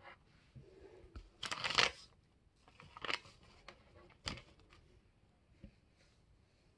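Ironing paper rustling and crinkling as it is handled around a mini hobby iron, loudest about a second and a half in, then a short knock as the iron is set back down on the paper about four seconds in.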